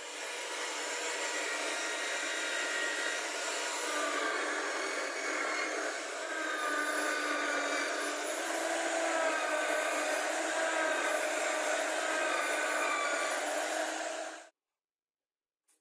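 Electric drill in a homemade drill press stand, running steadily while boring into a board. Its whine shifts in pitch as the bit takes load. The sound cuts off suddenly shortly before the end.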